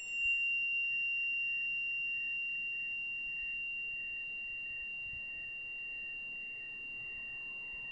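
Tuning fork ringing after a strike: one steady high tone that slowly fades, with a higher overtone dying away within the first seconds.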